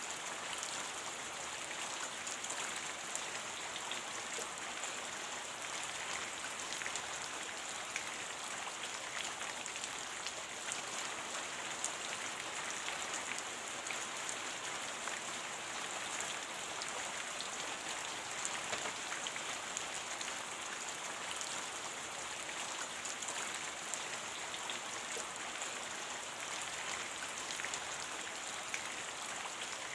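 Steady rain falling: an even, high hiss of many drops with fine individual drop ticks, keeping the same level throughout.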